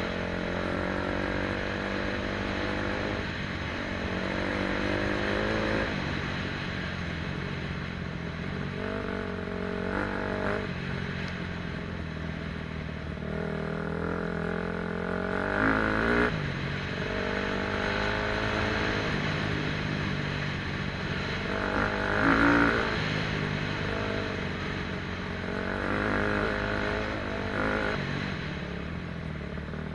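KTM 250 SX-F four-stroke single-cylinder motocross engine running while being ridden, its revs rising and falling again and again.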